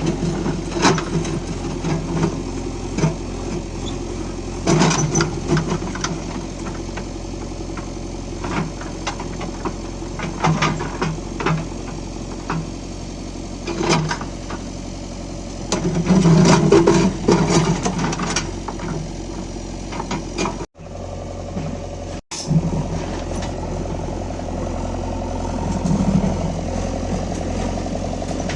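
JCB backhoe loader's diesel engine running steadily while it digs, with repeated knocks and clatter from the working bucket and arm. The sound breaks off briefly twice, about two-thirds of the way through.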